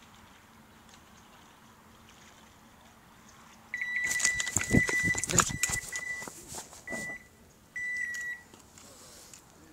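Electronic carp bite alarm going off, sounding a steady high beep in several broken stretches from a little under four seconds in, with a rapid rattle of clicks during the first stretch.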